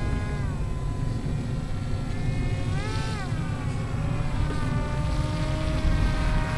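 RC model airplane's motor and propeller buzzing in flight overhead. The whine drops in pitch about half a second in, rises and falls briefly about three seconds in with a throttle change, then runs steadily lower. Wind rumbles on the microphone underneath.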